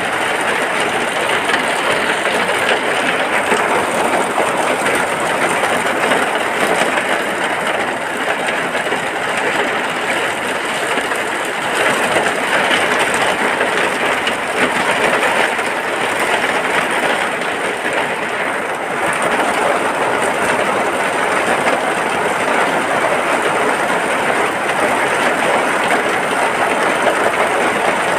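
Steady rain falling without a break: a dense, even rush of noise that holds at one level throughout.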